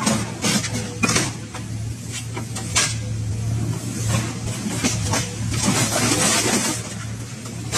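Excavator's diesel engine running steadily, with several sharp metallic clanks and crunches as its hydraulic scrap shear grips and cuts scrap metal.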